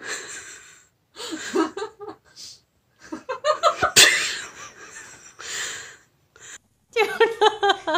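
A person laughing in breathy, wheezing bursts, with a sharp click about four seconds in. A voice speaks briefly near the end.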